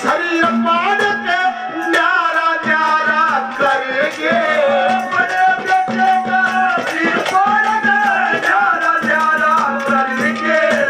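Live Haryanvi ragni folk music: a wavering melody over a steady low drone, with hand-drum beats and a jingling rattle keeping the rhythm.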